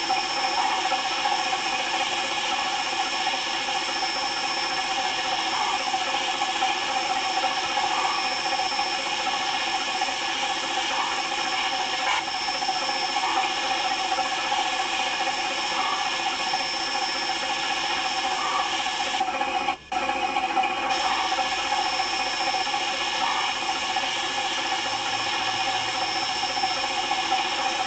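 Small electric motor and gear train of a motorised toy train engine whirring steadily, with faint soft ticks every couple of seconds.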